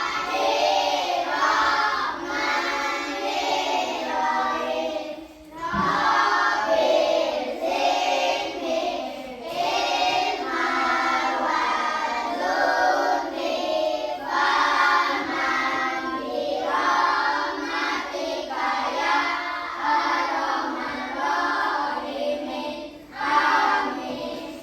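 Children singing a song together in unison, with a short break about five seconds in.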